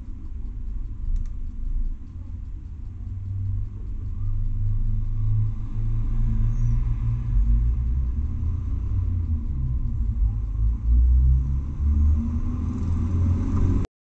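A low, uneven rumble that grows louder from about four seconds in, with a faint, short high chirp about six and a half seconds in.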